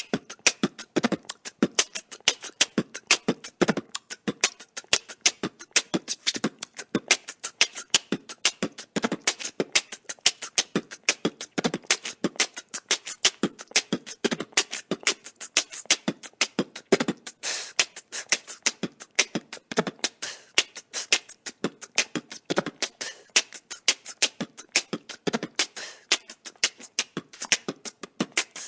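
Human beatboxing: a fast, steady rhythm of mouth-made kick, snare and hi-hat sounds, the sharp hissing strokes several times a second with lower kick thumps between.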